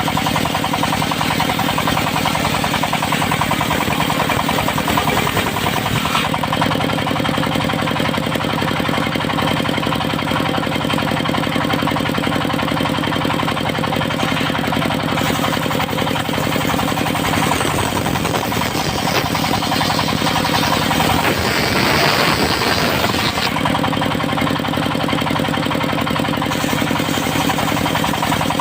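Diesel engine of a mobile circular sawmill running steadily. A louder hissing stretch rises over it about two-thirds of the way in and cuts off a few seconds later.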